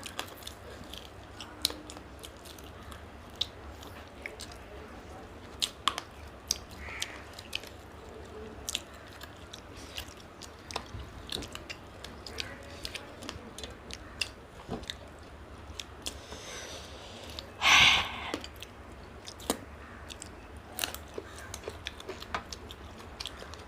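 People chewing and biting mouthfuls of mutton biryani, with short wet mouth clicks and small crunches at irregular intervals over a steady low hum. One louder noise lasting about half a second comes about three quarters of the way through.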